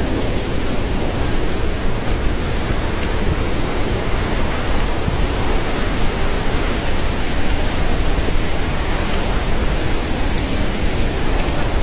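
Fast-flowing floodwater rushing in a torrent: a loud, steady, unbroken rush of water.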